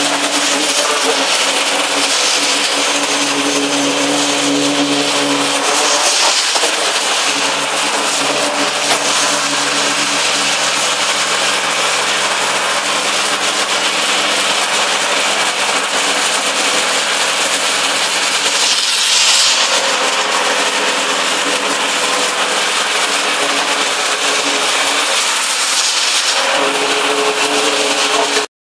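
Loud, steady machine noise from concrete-placing equipment running while wet concrete is pumped through a hose into timber stair formwork; it cuts off suddenly near the end.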